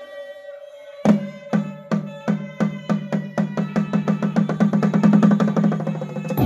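A held pitched note, then a low-pitched drum struck in single strokes that speed up steadily into a fast roll.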